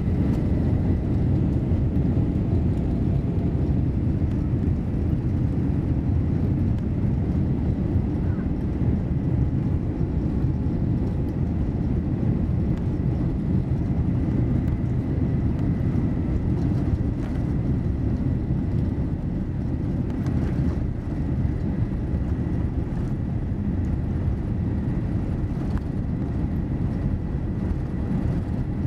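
Boeing 787-8 airliner rolling on the ground, heard from inside the passenger cabin: a steady, deep rumble of engines and wheels, with a faint steady high tone above it.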